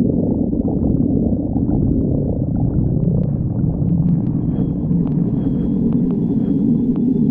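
Human stomach growling: a continuous low rumble, with a gurgle that bends up in pitch about two to three seconds in.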